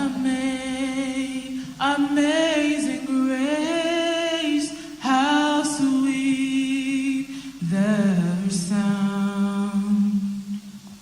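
Church choir singing a cappella: four long phrases of held notes with short breaths between them, fading away near the end.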